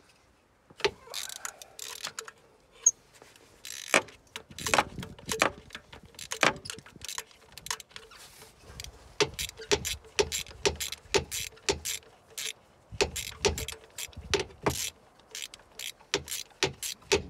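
Socket ratchet wrench clicking in short irregular runs as it loosens a spark plug from the cylinder head.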